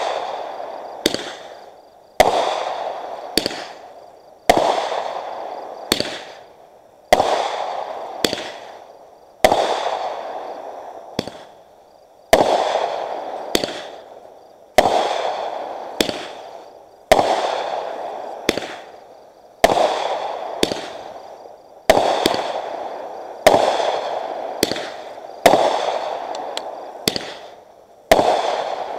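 Aerial fireworks bursting overhead in a steady series. A sharp bang comes about every two seconds, with smaller cracks in between, and each bang trails off over a second or two.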